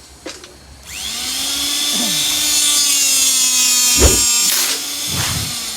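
Electric motor of a handheld D25 hydraulic rebar cutter starting about a second in and running with a steady whine, with a loud clunk about four seconds in and a smaller thump a second later.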